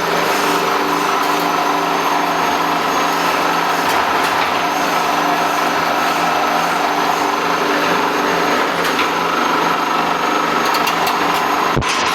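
Wire-straightening machine running steadily, a constant motor hum with several steady tones over a continuous mechanical rush. A sharp click or two near the end.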